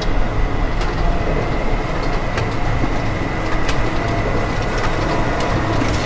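A steady mechanical rumble with a thin, high, steady whine over it and scattered sharp clicks and knocks.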